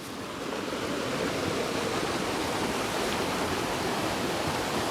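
Steady rushing of a creek pouring over a waterfall, a little louder over the first second and then even.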